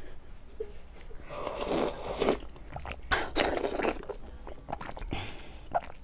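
Close-miked eating sounds: a woman biting into and sucking at a soft, watery jelly sweet, with two wet bursts of slurping and chewing about one and a half and three seconds in, and a smaller one near the end.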